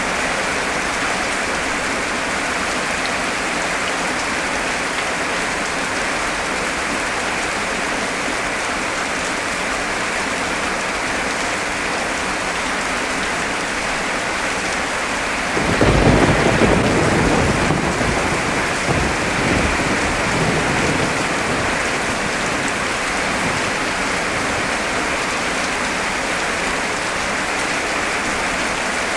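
Heavy rain falling steadily as a dense hiss. About halfway through, a sudden clap of thunder breaks in, rumbling low for a few seconds before fading back under the rain.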